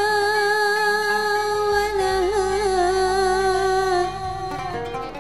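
A woman singing one long held note with vibrato over a gambus band's keyboard and bass; the note ends about four seconds in and short plucked oud notes follow.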